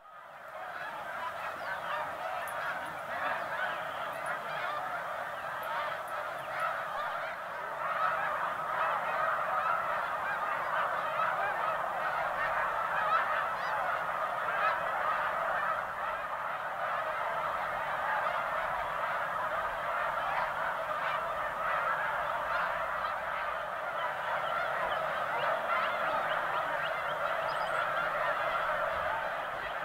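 A vast flock of snow geese, tens of thousands of birds, honking and calling all at once in a dense, unbroken chorus that fades in at the start.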